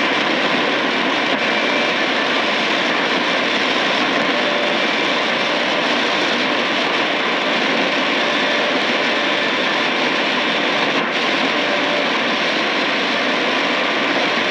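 Steady shortwave static and hiss from a Tecsun PL-880 receiver tuned between stations on the 31-metre band, with faint thin whistle tones coming and going in the noise.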